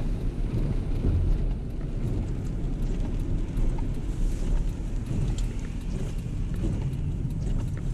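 A car driving on rain-wet roads, heard from inside the cabin: a steady low rumble of engine and tyres, with faint scattered ticks of rain on the windshield.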